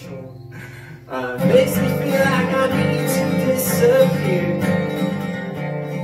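Steel-string acoustic guitar being strummed in chords: quieter for the first second, then coming back in strongly about a second in and ringing on with steady strumming.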